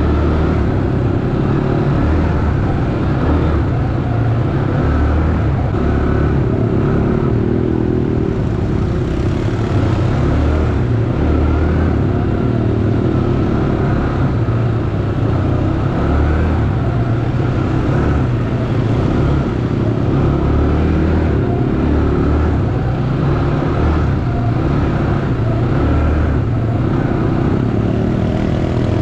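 ATV engine running steadily, the ride going on without a break.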